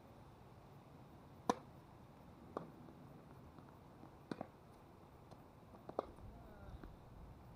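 A tennis ball being hit with rackets and bouncing on a hard court during a rally: five sharp pops spaced one to two seconds apart, two of them close together near the middle, the loudest about a second and a half in.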